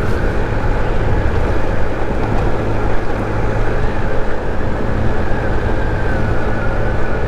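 GY6 50cc four-stroke scooter engine running at a steady cruising speed, with wind buffeting the microphone.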